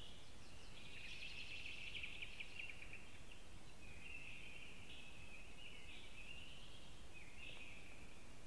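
Songbirds singing in the surrounding forest, short phrases following one another, over a steady low background noise.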